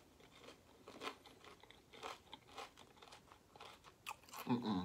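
A person chewing battered fried food close to the microphone: soft, irregular crunches and wet mouth sounds, with a louder moment near the end.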